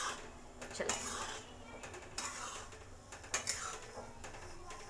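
A metal spoon scraping and clinking against an aluminium kadhai in a series of strokes while stirring down the froth of sugar syrup boiling hard, keeping it from boiling over.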